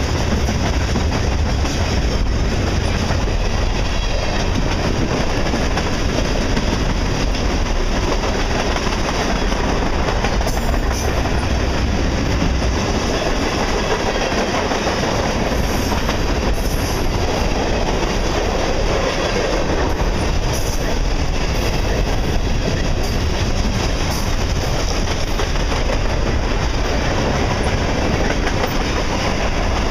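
Freight cars (boxcars and covered hoppers) of a manifest train rolling past: the steady noise of steel wheels on the rails, with a few faint clicks.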